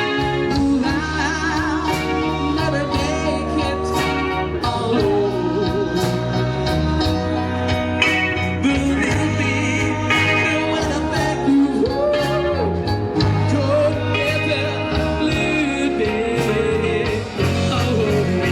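A song playing: a band with a singing voice over bass, guitar and drums with a steady beat.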